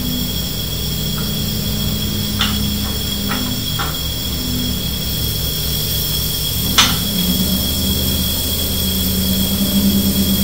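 A steady low mechanical drone, growing somewhat stronger toward the end, with a few sharp metallic clicks; the loudest click comes about two-thirds of the way through.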